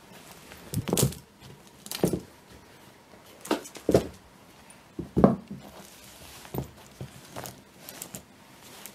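Leather bridle with metal rings, buckles and bit being turned over by hand on a cloth: a series of soft knocks and metal clinks, the loudest about a second in and again around four to five seconds in.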